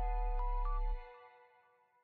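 Soft background music of held notes over a low bass, which fades out about a second in.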